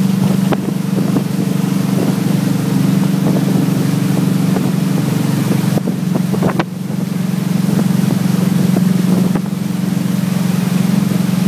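Tow boat's inboard engine running steadily at speed, heard from aboard, with wind buffeting the microphone and the wake rushing.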